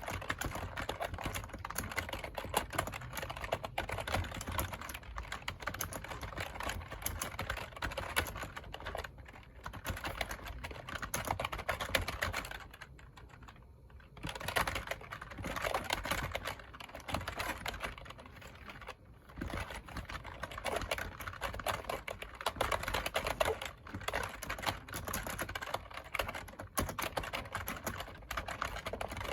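Steady fast typing on a computer keyboard, a dense run of key clicks that pauses briefly twice, about halfway through and again a few seconds later.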